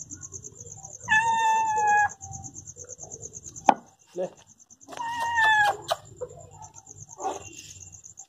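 Orange-and-white domestic cat meowing twice, each meow about a second long and slightly falling in pitch, once about a second in and again about five seconds in, while begging for the food it is being handed.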